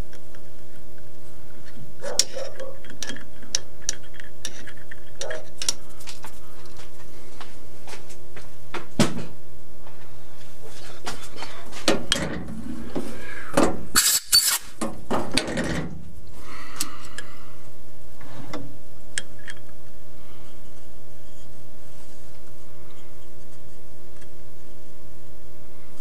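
Hand tapping a hole in a metal part with a T-handle tap wrench: scattered light metallic clicks and clinks of the wrench and tap, with a louder clatter of metal tools being handled from about 12 to 16 seconds in. A steady hum runs underneath.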